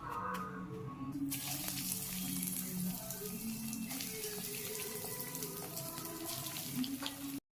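Cutlets deep-frying in hot oil: a steady sizzling hiss with scattered crackles that starts about a second in and cuts off abruptly near the end, over background music.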